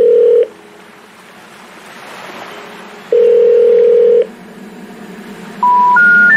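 Electronic beep tones: a held tone that stops about half a second in, another held tone lasting about a second past the three-second mark, then three short beeps stepping up in pitch near the end.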